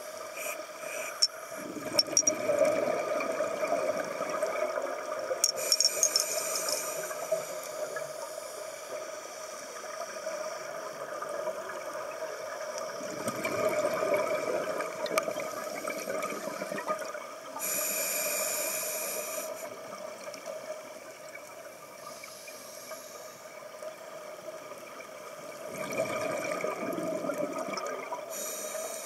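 Scuba breathing heard underwater: the regulator's hiss and the rushing of exhaled bubbles, coming in three slow breathing cycles about twelve seconds apart, over a steady hum.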